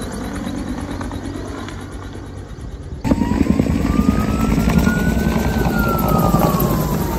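Firefighting helicopter flying overhead, its rotor and engine sound fading over the first three seconds. About three seconds in, the sound cuts to a louder steady rumble, with a single whine that slowly rises and then falls away, like a siren.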